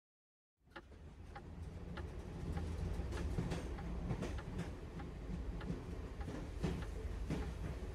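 Railway station background ambience: a steady low rumble with light clicks and knocks scattered through it, fading in just after the start.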